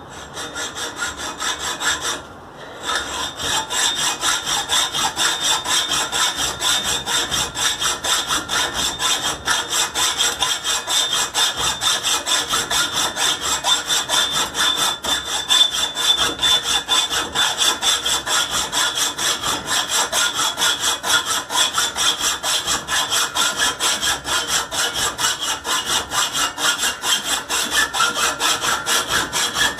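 Hacksaw cutting through a metal pipe, fast, steady back-and-forth strokes, with a short break about two seconds in.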